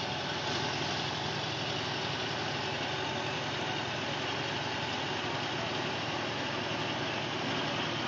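Kubota ARN105 combine harvester's diesel engine running steadily at an even speed.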